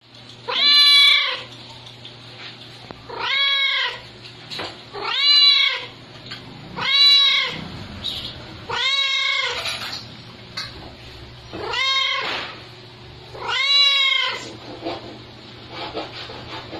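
Domestic cat meowing seven times, about every two seconds, each meow rising then falling in pitch: a hungry cat begging for food.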